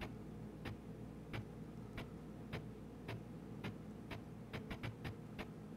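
A series of light, sharp clicks, about one every half-second, coming closer together near the end, over a faint steady low hum. These are the clicks of stepping a video-editing timeline forward frame by frame.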